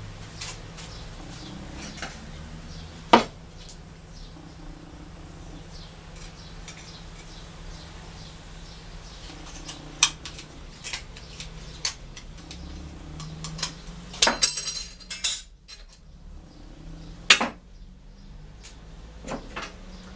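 Aviation tin snips cutting thin sheet metal: sharp metallic snips and clinks, spaced several seconds apart, with a quick run of cuts about two-thirds of the way through.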